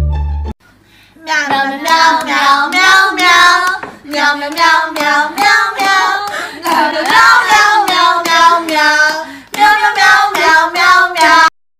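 A high voice singing a melody in several phrases with short breaks, starting about a second in and cutting off abruptly just before the end.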